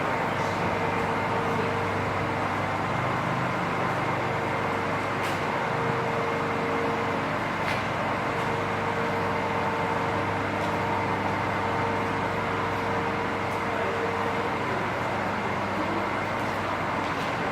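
Steady mechanical drone with several held tones and an even noisy hiss, broken only by a few faint clicks.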